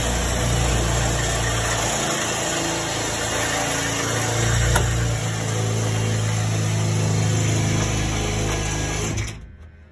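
Gas furnace running with its blower cabinet open: a steady motor hum and rush of moving air that cuts off abruptly near the end.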